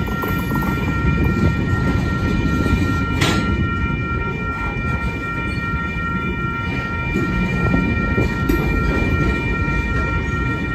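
Freight train cars rolling past at a grade crossing: a steady low rumble of wheels on rail, with one sharp clank about three seconds in. Over it runs a steady high tone.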